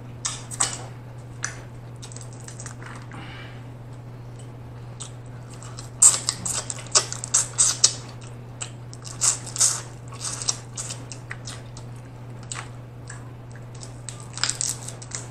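Close-miked eating of snow crab legs: shell pieces cracking and meat being picked out and chewed, with wet smacks and sharp clicks, densest in a run from about six to ten seconds in and again near the end. A steady low hum runs underneath.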